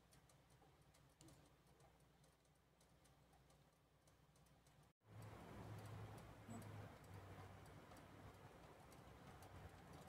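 Near silence: faint room tone with a low hum and a few faint ticks, the hum a little louder after a brief dropout about five seconds in.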